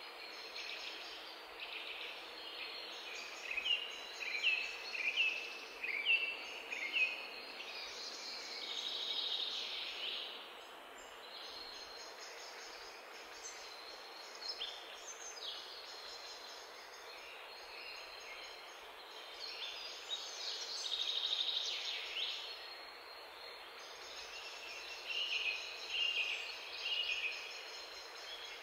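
Birds chirping in short, repeated calls that come in several clusters over a steady background hiss.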